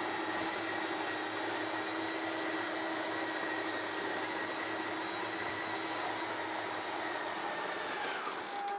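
12-volt electric motors of an RV slide-out running steadily as the slide extends, with a whine that sags in pitch near the end as the motors load up at the end of the slide's travel.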